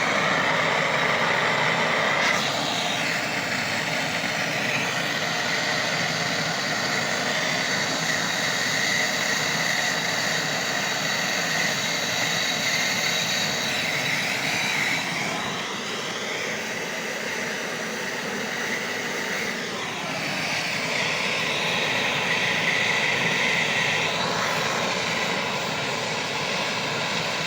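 Gas welding torch flame hissing steadily, its tone shifting several times.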